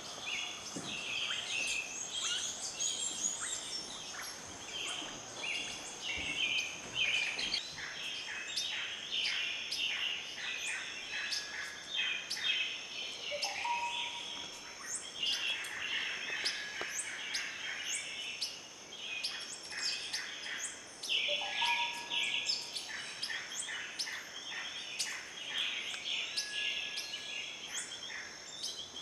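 Wild birds chirping and twittering in a dense, continuous chorus over a steady high-pitched tone. Twice, a lower whistle rises and then holds.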